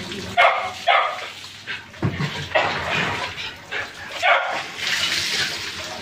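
Water poured from a plastic pitcher splashes over a wet dog during its bath. A dog barks in short bursts several times over the splashing.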